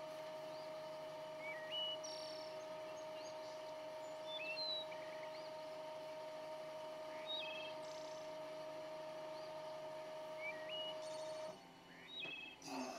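Wood lathe running with a steady motor whine that cuts off suddenly near the end. Birds chirp repeatedly over it.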